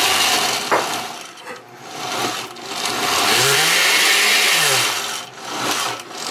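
Countertop blender motor running a pre-programmed cycle, blending a thick strawberry, banana, avocado and spinach smoothie. It surges and eases off in pulses, with its pitch sliding up and down, and drops briefly about two seconds in and again near the end.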